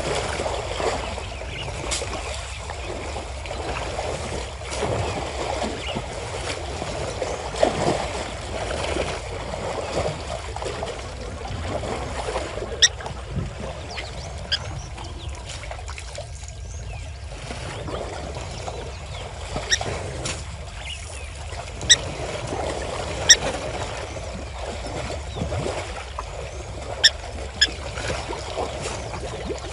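Water sloshing and splashing as African elephants wade and elephant calves wallow and roll in a shallow waterhole. A few short, sharp clicks stand out, mostly in the second half.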